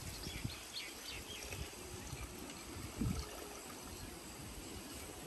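Water pouring steadily into a kadai of curry, with a few bird chirps in the first second and a single low knock about three seconds in.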